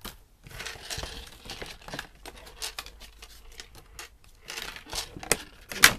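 Toy packaging being handled: plastic and cardboard crinkling and rustling with irregular clicks and knocks, and a sharper knock near the end.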